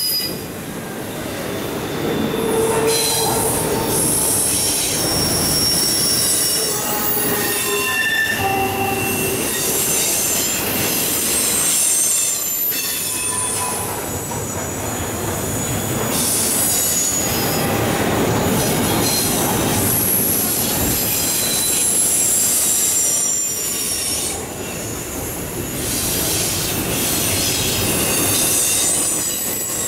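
Double-stack intermodal container well cars rolling past at close range: a continuous rumble of steel wheels on rail, with high-pitched wheel squeals coming and going throughout.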